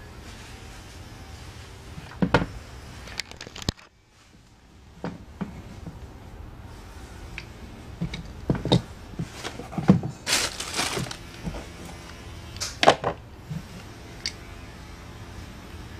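Scattered clacks and knocks of a hard-plastic adjustable hand-grip trainer with a steel coil spring being handled and squeezed, with a short rattling scrape about ten seconds in.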